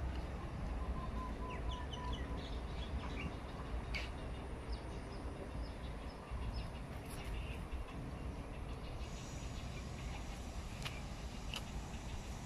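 Birds chirping, with short scattered calls and a brief run of quick repeated notes about a second in, over a steady low outdoor rumble.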